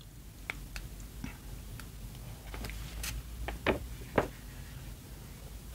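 Large paper cross-stitch chart being handled and bent, giving scattered faint crinkles and clicks, two slightly louder ones around four seconds in, over a faint steady hum.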